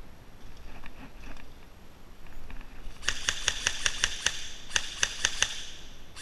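Airsoft electric rifle (a G&G TopTech M4) firing in several short rapid bursts of sharp clicks, about ten shots a second, starting about three seconds in.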